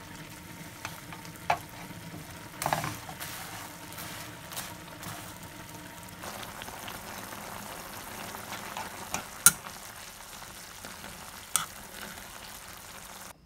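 Food sizzling in a nonstick frying pan, with a few sharp clicks of a metal utensil against the pan. The sizzle cuts off abruptly near the end.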